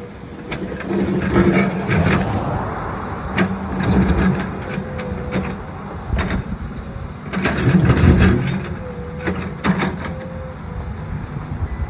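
Backhoe's diesel engine running and revving up under load several times, with repeated sharp clatter and crashes of cinder blocks being broken and knocked down by the bucket.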